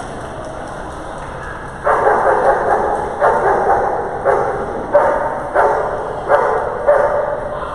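A dog barking repeatedly. The barking starts about two seconds in and comes about one to two barks a second, over a steady hall background.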